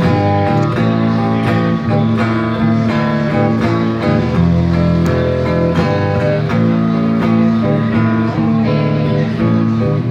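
Electric guitar playing an instrumental blues passage live, with picked notes over sustained low notes.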